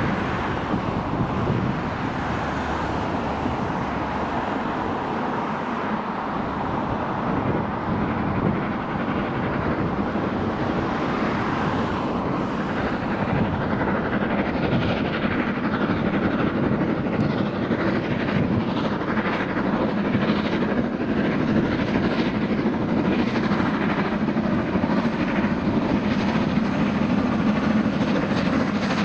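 Three-cylinder LMS Jubilee Class 4-6-0 steam locomotive working a train of coaches, its exhaust beating in an even rhythm over the rumble of the train. It grows louder about halfway through as it draws nearer.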